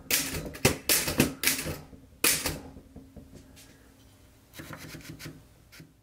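Torpedo Model 6 manual typewriter typing: a quick run of sharp key strikes for the first two and a half seconds, then, after a short lull, a softer flurry of clicks near the end.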